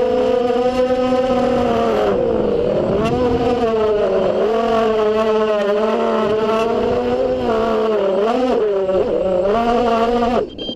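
FPV quadcopter's electric motors and propellers whining, the pitch rising and falling over and over as the throttle is worked, then cutting off near the end.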